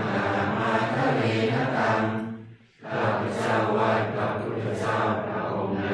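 Group of voices chanting Buddhist morning-chanting verses in Pali and Thai in unison on a near-steady pitch. There is a short pause for breath about two and a half seconds in, then the chant goes on.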